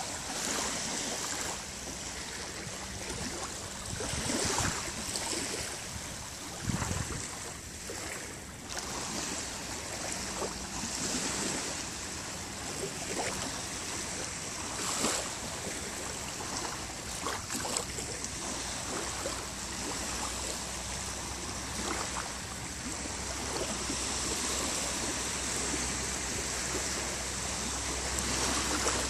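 Small, gentle sea waves lapping and breaking on a sandy shore: a steady wash of water with frequent small splashes.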